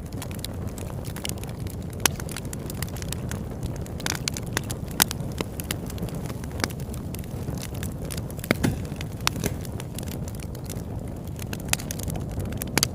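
Campfire crackling: irregular sharp pops and snaps, a few louder than the rest, over a steady low rumble.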